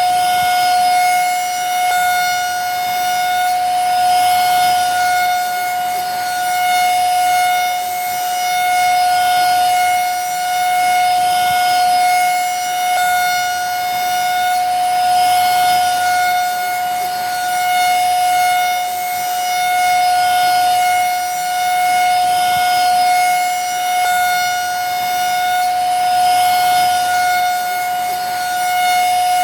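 Vacuum cleaner running steadily: a constant high motor whine over a rushing hiss, swelling and easing slightly every couple of seconds.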